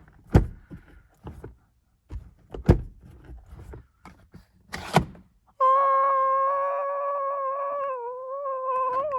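Sun visor being flipped and knocking against its stop or the headliner, three separate thunks a couple of seconds apart. After that comes a steady held tone of about three and a half seconds with a slight waver near its end.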